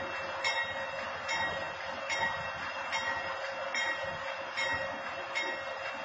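Diesel locomotive standing and running steadily, with a warning bell striking about once a second over it.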